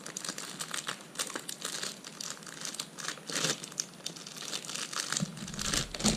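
Plastic wrapper crinkling and rustling in the hands as a new speed cube is unwrapped from its packaging, with a few low handling bumps near the end.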